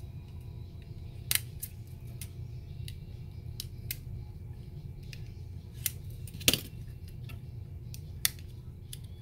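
Hobby knife blade slitting and picking at the plastic heat-shrink wrap on a three-cell lithium-ion battery pack, with fingers pulling the split wrap apart: a series of short sharp clicks and snips, the loudest about six and a half seconds in.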